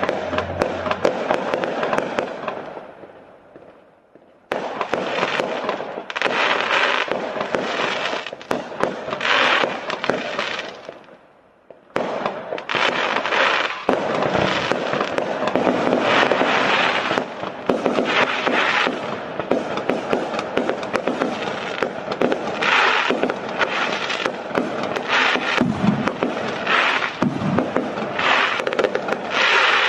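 Fireworks display going off in rapid succession: a dense run of crackling, popping and bangs. It dies away twice, about three seconds in and again around eleven seconds, and starts up again suddenly each time.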